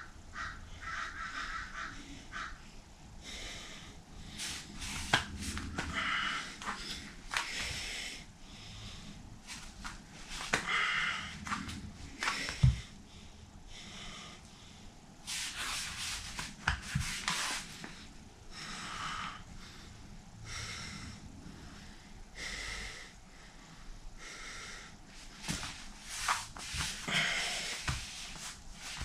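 A man breathing hard while holding a forearm plank: heavy, noisy breaths through nose and mouth, a puff every one to three seconds, the sound of sustained muscular strain. A single sharp knock about halfway through.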